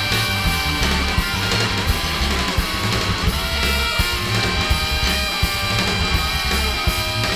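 Dense, loud free-jazz improvisation: guitars played over bass and drums, with frequent short drum hits.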